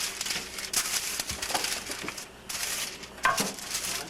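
Rustling and crinkling with scattered light clicks and knocks: dough and paper being handled during kitchen work.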